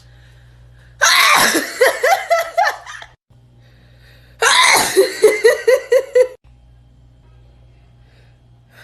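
A woman sneezing twice, nose tickled with a cotton swab. Each is a sudden loud outburst that trails off into quick pulsed sounds over about two seconds.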